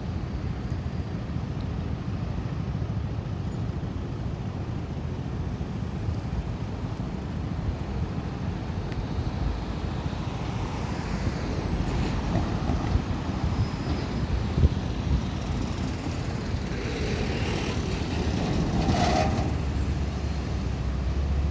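Steady low rumble of vehicle noise, growing louder in the second half.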